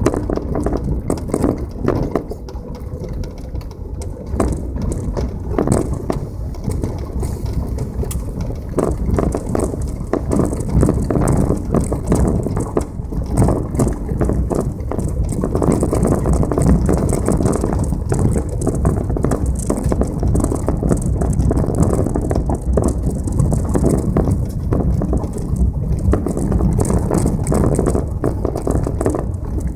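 Passenger car driving over a rough unpaved road: a steady rumble of tyres on gravel with constant small rattles and knocks.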